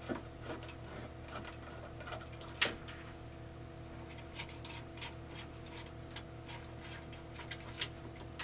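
Scattered small clicks and taps of hands handling two small plastic receiver boxes and their threaded SMA antenna connectors, with one sharper click about two and a half seconds in. A faint steady hum runs underneath.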